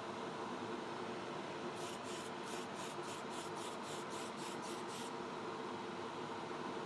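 A quick run of about a dozen short spray-paint bursts, some three to four a second, over the steady hum of a spray booth fan. The bursts start about two seconds in and stop about a second and a half before the end.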